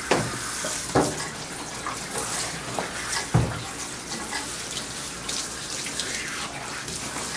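Water spraying from a handheld hose sprayer nozzle onto a wet dog's coat and splashing into a tub, a steady hiss with a few brief knocks.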